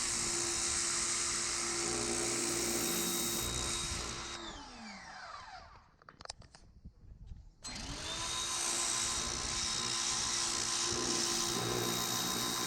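Pressure washer running with its steady motor hum and spray hiss; a little over four seconds in the motor winds down, falling in pitch, to near silence with a few clicks, then starts up again abruptly at about eight seconds and runs steadily.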